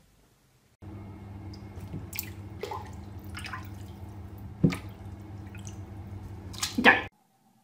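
Water dripping in a bathtub: several separate, sharp plinks over a steady low hum, the loudest cluster near the end.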